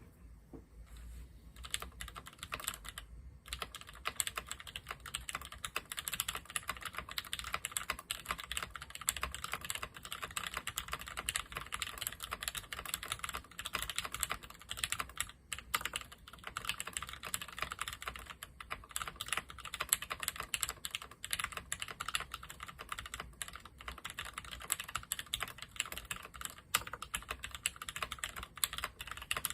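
Steady fast typing on a Discipline65 mechanical keyboard with lubed ZealPC Tealios 67g linear switches, an FR4 plate and ePBT ABS keycaps: a dense run of key clacks, with brief pauses about three and fifteen seconds in.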